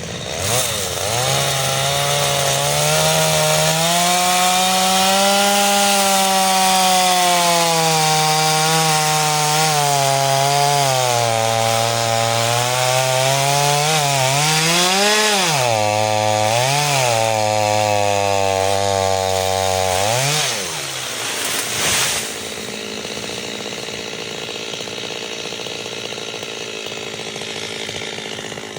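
Stihl MS 230 two-stroke chainsaw revving up and running at high speed, its pitch sagging and recovering as it works through wood. It then gives several quick throttle blips before dropping to a lower, quieter running about two-thirds of the way through, with a brief knock shortly after.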